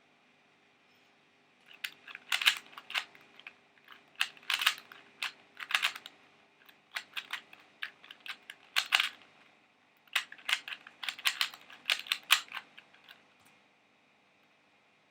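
A 2x2 pocket cube being turned fast by hand: quick runs of plastic clicks from the layer turns, with brief pauses between the runs. The clicking starts about two seconds in and stops about a second and a half before the end.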